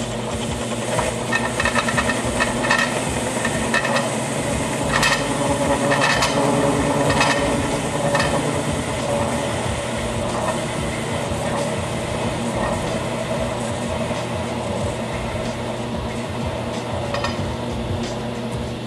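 Homemade concrete-bed metal lathe running steadily while a carbide insert tool faces off the end of a steel workpiece, a scratchy, crackling cutting sound over the spindle hum. The scratchy cutting is busiest in the first half and eases later on.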